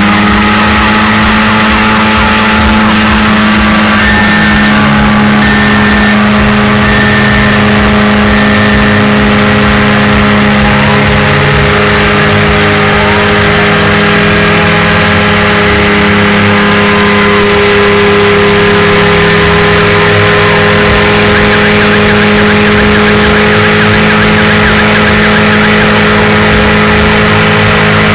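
Ford Escort and Opel Vectra engines held at steady high revs in a nose-to-nose burnout, with the hiss of tyres spinning on the pavement; a loud, unbroken drone.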